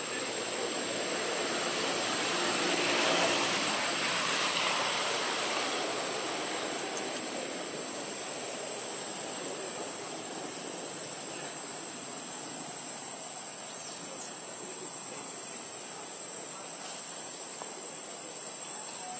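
Steady outdoor background noise: an even hiss with a constant high-pitched whine over it, unchanging throughout and with no clear animal calls.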